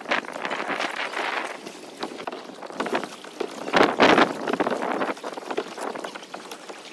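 Water splashing around a paddled kayak, with wind on the microphone; the splashing swells twice, at the start and about four seconds in.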